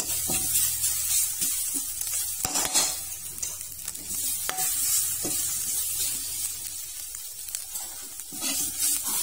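Chili curry paste sizzling in oil in an aluminium wok as a metal spoon stirs it, with irregular scrapes and taps of the spoon against the pan, the loudest about two and a half seconds in.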